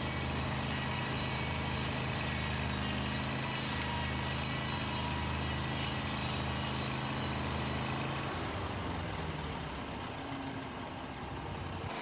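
Portable bandsaw mill's 23 HP Briggs & Stratton engine running steadily under load as the band blade cuts through a log, with a hiss over the low engine note. About eight seconds in the engine note drops away and the sound thins out.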